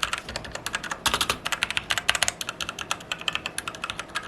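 Fast typing on an Ant Esports MK1300 Mini 60% mechanical keyboard fitted with Outemu red linear switches: a rapid, continuous run of key clacks, many strokes a second.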